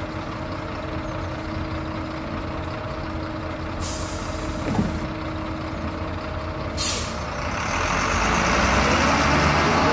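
Bus engine idling steadily, with two hisses of air from the air brakes about four and seven seconds in, then the engine speeding up as the bus pulls away.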